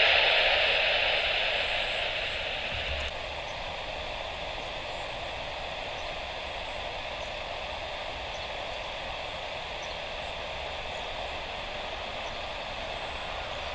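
Steady hiss of an air-band radio channel between transmissions. It is louder for the first few seconds, drops abruptly about three seconds in, then holds at a lower steady level.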